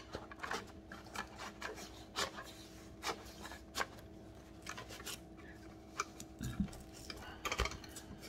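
Folded metal UCO Flatpack portable grill being slid into its canvas pouch: fabric rubbing and scraping against the metal, with scattered light clicks and taps and a quick cluster of them about seven and a half seconds in.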